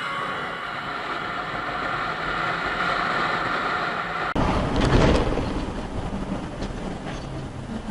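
Motorcycle riding at highway speed, engine running steadily under wind rush on a helmet-mounted camera. About four seconds in the audio cuts to a duller vehicle rumble on a dashcam, with a loud low rumble a moment after the cut that fades away.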